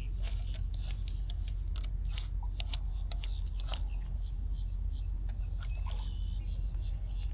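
Outdoor ambience by the water: a steady high insect drone and short repeated chirps, with scattered light clicks over a low wind rumble.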